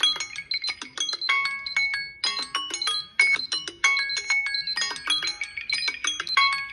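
Timer alarm tones from several smartphones ringing at once after their countdowns have run out: overlapping melodies of short, bright chiming notes, each struck sharply and fading, piling into a dense jumble.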